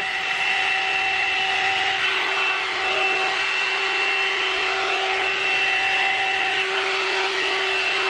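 One-step hot air brush (hair dryer and styler) running steadily while it is brushed through hair: a steady whine from its fan motor over the rush of blown air.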